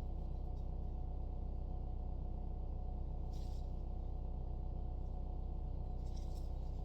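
A steady low hum with a faint constant higher tone, broken twice by a brief soft rustle, about a third of the way in and again near the end.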